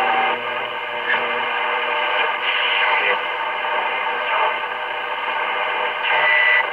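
1932 Tiffany Tone vacuum-tube radio's loudspeaker playing a distant AM broadcast station that is coming in by skip, mostly static and hiss with the programme faint underneath. There is a brief whistle near the end.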